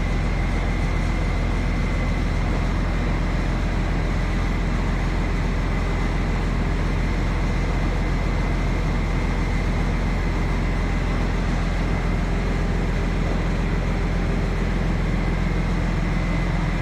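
International Harvester tractor engine running steadily at low throttle: an even, low hum with a thin, steady high tone above it.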